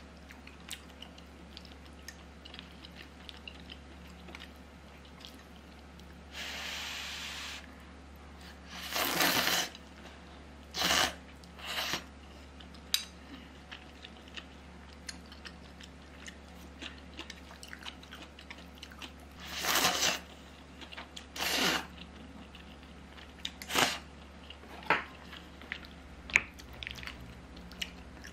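Kalguksu noodles being slurped from the hot soup in several loud, short slurps, with chewing and small clicks of chopsticks and spoon between them. A brief steady breathy hiss comes about a quarter of the way in.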